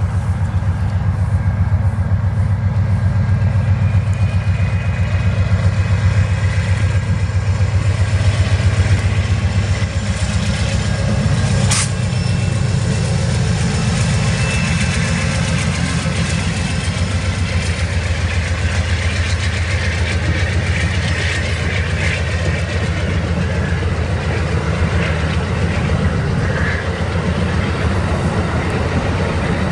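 Amtrak GE P42DC Genesis diesel locomotive passing close by, its engine a loud steady low rumble, strongest in the first half. The passenger cars then roll by with steady wheel and rail noise, and there is a single sharp click about twelve seconds in.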